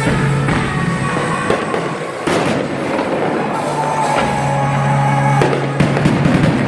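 Fireworks shells bursting in a string of sharp bangs, about half a dozen, with a quick cluster near the end, over steady music playing along with the show.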